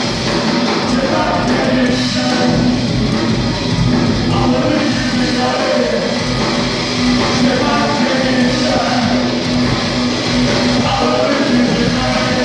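Live rock band playing loudly: electric guitars, bass and drums, with a singer's voice over them.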